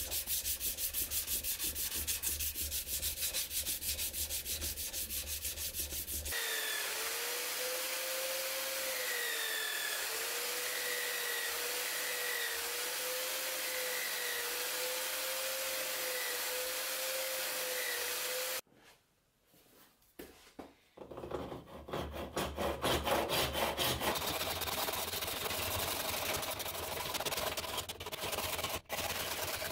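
A hand file rasping in quick strokes across a small steel knife guard clamped in a vise. About six seconds in, a motor-driven sanding wheel takes over with a wavering whine as the metal is pressed against it, and runs for about twelve seconds. After a short pause, a hand back saw cuts through a wooden block in fast strokes.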